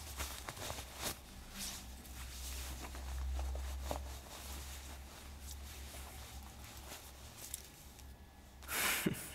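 Rustling and small clicking handling noises as things hanging on a hook, among them a plastic bag, are searched through, over a steady low hum; a louder rustle-like burst comes near the end.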